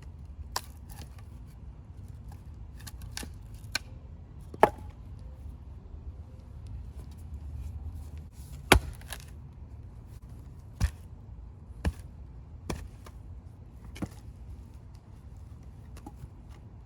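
Old Collins axe splitting firewood: about nine sharp whacks of the axe head striking wood at uneven intervals, the loudest a quarter of the way and halfway through.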